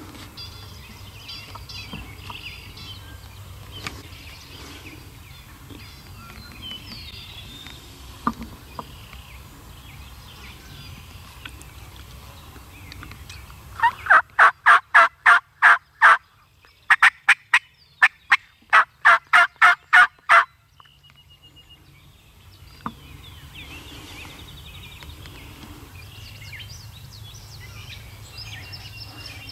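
Turkey calling: about halfway through come two loud runs of rapid, evenly spaced notes, the first about two seconds long and the second nearly four. Faint songbird chirps sound before and after.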